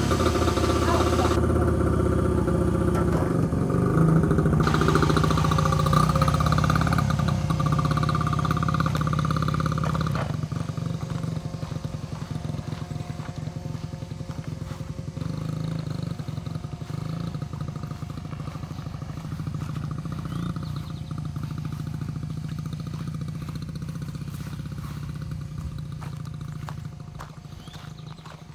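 Child's mini dirt bike engine running. About ten seconds in it gets quieter as the bike rides away, and it keeps fading toward the end.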